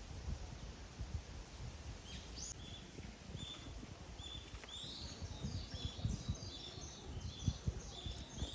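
Small bird calling, a short chirp repeated every half-second or so starting about two seconds in, with busier higher chirping joining about halfway, over a low outdoor rumble.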